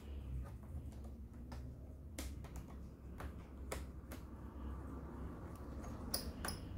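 Small screwdriver turning out a side screw from a laptop screen's metal bracket: light, irregular clicks of metal on metal, about a dozen, with a low steady hum underneath.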